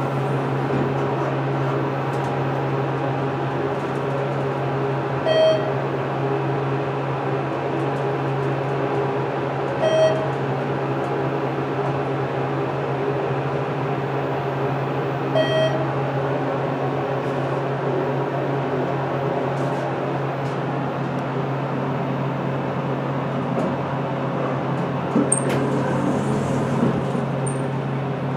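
ThyssenKrupp hydraulic elevator cab riding down, with a steady low hum throughout. Three short electronic beeps sound about five seconds apart. A few faint clicks come near the end as the car stops and the doors open.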